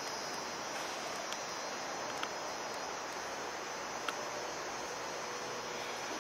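Steady outdoor background hiss with a faint, thin, high steady tone over it, broken by a few soft ticks about a second in, around two seconds in and around four seconds in.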